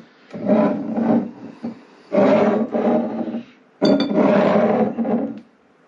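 A man's voice in three drawn-out stretches, the words not made out, with a sharp clink of a glass bottle about four seconds in.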